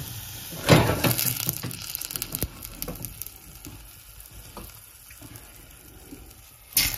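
Ají panca sauce sizzling in a stainless saucepan as a stuffed rocoto pepper is lowered in with a spoon. There is a loud clunk and splash about a second in and another knock just before the end, and the sizzle fades in between.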